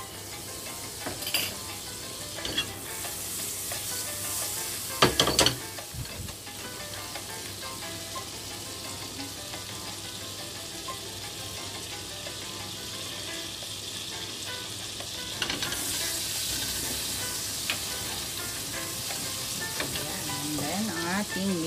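Butter melting and sizzling in hot olive oil in a nonstick pan, with a few sharp clinks of a metal spoon against the pan about five seconds in. The sizzle gets louder in the last third as minced garlic is stirred into the butter and oil.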